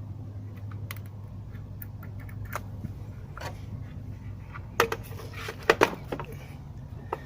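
Light scattered clicks and small rattles of hands handling a sprinkler controller and its wiring, with a few sharper clicks a little past the middle, over a steady low hum.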